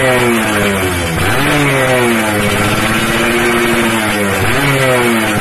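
Yamaha F1ZR's two-stroke single-cylinder engine revved through an aftermarket AHM Malaysia racing exhaust. It is blipped repeatedly, about a second in and again near the end, each rev rising sharply and then falling away slowly toward idle.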